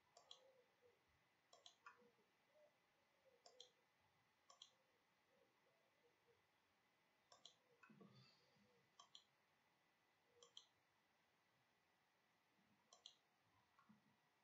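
Faint computer mouse clicks, each a quick press-and-release double tick, about eight in all at irregular intervals of a second or two, as chart tabs are clicked through. A soft low bump about eight seconds in.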